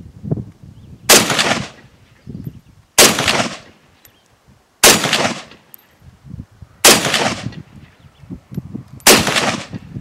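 SKS semi-automatic carbine in 7.62×39mm fired five times, one shot about every two seconds, each shot trailed by a short echo.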